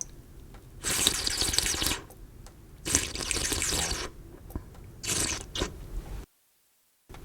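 A series of slurps of liquid: two long slurps of about a second each, then a shorter slurp and two quick short sips, with a moment of dead silence near the end.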